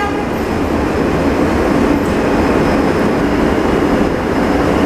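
R160 subway train running along the track, heard from on board: a loud, steady rumble of wheels and rail noise.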